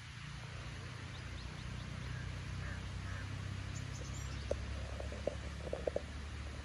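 Low wind rumble on the microphone outdoors, with a few faint bird chirps and several soft clicks in the second half.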